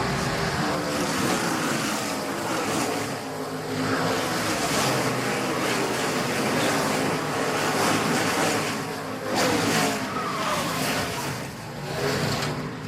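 NASCAR Cup car's V8 engine heard from inside the car at racing speed, its pitch rising and falling with the throttle, over heavy road and wind noise.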